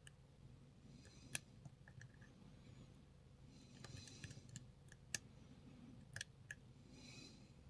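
Faint, sparse clicks and ticks of a lock pick working the pins of a Lockwood 334B45 padlock under very light tension. A few sharper clicks come about a second in and again around five and six seconds in.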